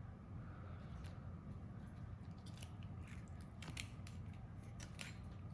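Crab shell being cracked while eating: a series of short, sharp cracks and crunches, bunched together in the second half, over a faint steady low hum.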